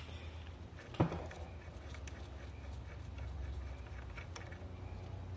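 Quiet hand work on a GY6/139QMB scooter's variator: one sharp click about a second in and a few faint ticks over a low steady hum, as the loosened crankshaft nut is spun off by hand.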